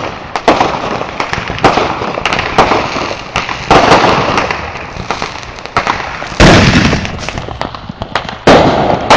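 Fireworks going off: a run of sharp bangs and crackling pops, each trailing off in a rumble, with the two loudest booms about six and a half and eight and a half seconds in.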